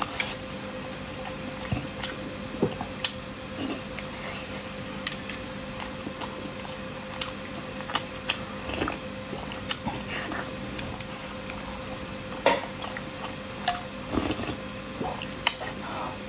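Close-miked eating of boiled eggs in chili broth: a metal spoon and chopsticks clicking against the bowl many times, with wet, squishy mouth sounds between. A faint steady hum runs underneath.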